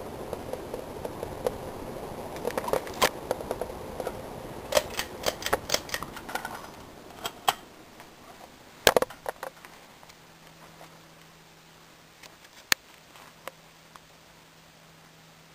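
Sierra Victorian Copy 52-inch ceiling fan with an Emerson K55 motor, running. For the first half there is a noisy rustle with many scattered clicks and rattles. A sharp click comes about nine seconds in, after which the motor's faint steady hum is left, with one more click a few seconds later.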